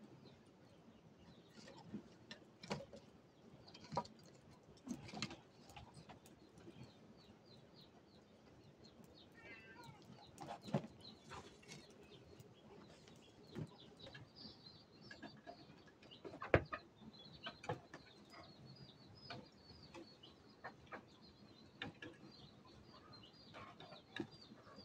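Scattered knocks and clicks of firewood and sticks being handled at a small wood fire in a stone hearth, the loudest knock a little past the middle. Birds chirp faintly throughout, with a quick run of high chirps from about the middle on.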